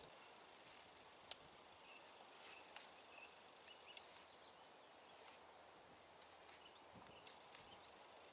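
Near silence: faint outdoor ambience with two sharp clicks, about a second and a half apart, and a few faint high chirps.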